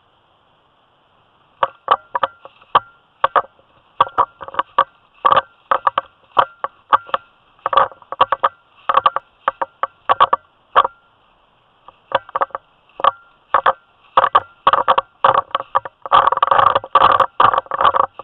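Footsteps crunching through dry fallen leaves, starting about one and a half seconds in at a walking pace and quickening into a dense run of crunching near the end.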